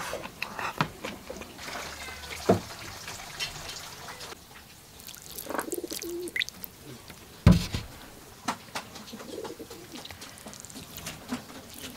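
Eating sounds: chopsticks clicking against a ceramic bowl and plate, and broth poured over rice. There is a sharp knock a little past halfway, and doves cooing in the background.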